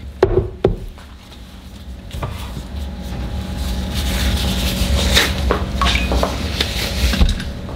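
Kitchen handling sounds: a few knocks of dishware against a wooden board in the first second, then a steady low hum with scattered clinks.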